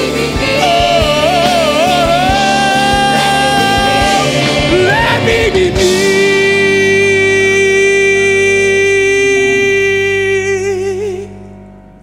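Musical theatre song ending: a solo singer sings winding, ornamented phrases over a band with drums, then holds one long final note that wavers at its end while the band sustains a chord. The music fades out near the end.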